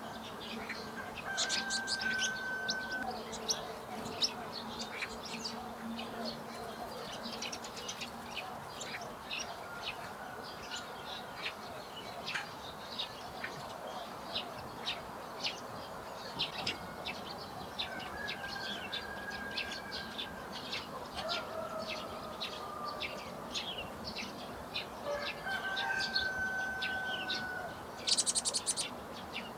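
Outdoor birdsong: many short chirps and calls from several small birds, with a few longer held notes and a quick rapid trill near the end.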